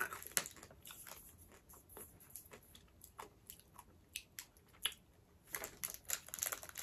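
Chewing and crunching a small round sugar-shelled chocolate candy: a scatter of short crisp cracks, coming thicker near the end.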